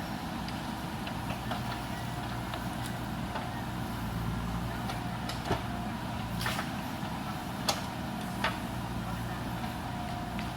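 JCB backhoe loader's diesel engine running steadily, with several sharp knocks and clanks in the second half.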